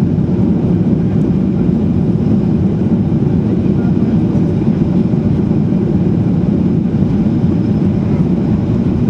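Steady cabin noise inside a Boeing 737-800: an even, low rumble from its CFM56 engines and the air around the fuselage, with no change in pitch or level.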